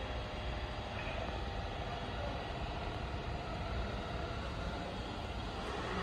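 Steady low rumble of distant road traffic, with no distinct event standing out.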